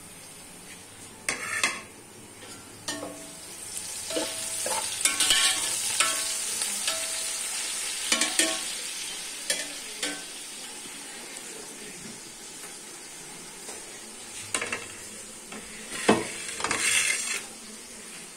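Onion and garlic sizzling in hot oil in an aluminium pot while a metal slotted spoon stirs and scrapes them against the pot's bottom. The sizzle swells while the stirring is busiest, and there are a few sharp metal knocks, about a second and a half in and again near the end.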